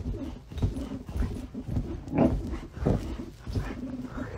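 Boxer dog making a string of short, low grumbling vocal sounds, irregular and broken, with the loudest bursts a little past the middle.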